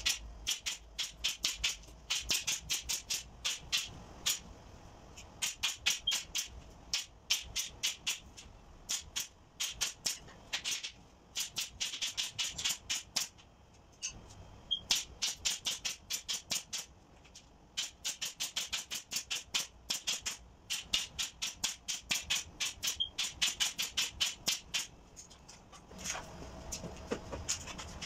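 Pneumatic staple gun firing rapidly into a wooden frame, fastening wire mesh: sharp clicks in quick runs of several a second, broken by short pauses and thinning out near the end.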